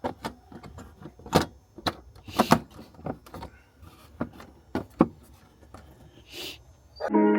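Car trim parts being handled and fitted into the hatch area: a series of irregular plastic clicks and knocks, with a brief rustle. Music comes in near the end.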